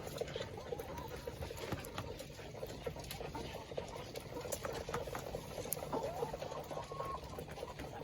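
Chickens pecking at feed: a dense, continuous patter of small quick taps, with a few faint bird calls later on.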